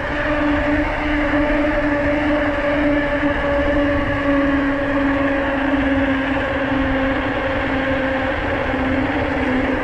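Mountain bike rolling fast on pavement: a steady humming whine from the running gear (freehub or knobby tyres) whose pitch sags slightly near the end as the bike slows, over a low rush of wind on the camera.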